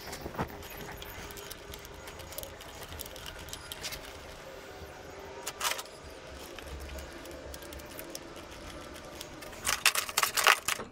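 Occasional light clicks and knocks of parts being handled while a motorcycle headlight is fitted, then a quick run of loud metallic clinks near the end as hand tools are handled.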